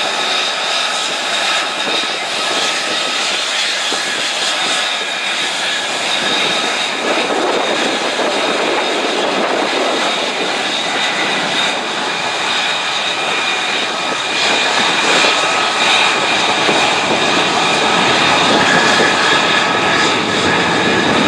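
A KC-10 Extender's three General Electric CF6 turbofan engines during takeoff and climb-out: steady jet engine noise with several high, steady whining tones on top. It grows a little louder about two-thirds of the way through.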